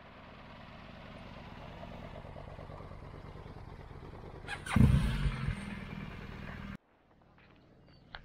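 Adventure motorcycles running at low speed as they ride in across the campsite, with a brief loud burst about five seconds in. The sound drops off abruptly near the end.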